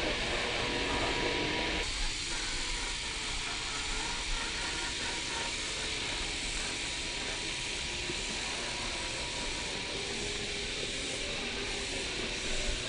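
1/6-scale FMS Jimny RC crawler driving over pine needles and dirt: a faint electric motor and gear whine that rises and falls with the throttle, over a steady hiss.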